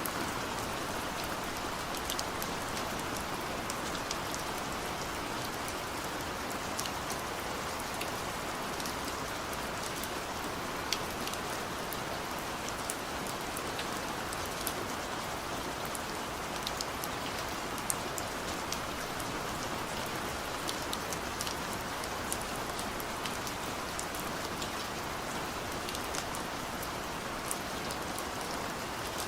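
Steady rain falling, a constant patter with many sharp individual drop ticks heard on top.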